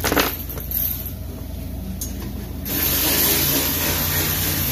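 A brief clatter right at the start, then a loud, steady hiss lasting about two seconds from a little past halfway, which then cuts off.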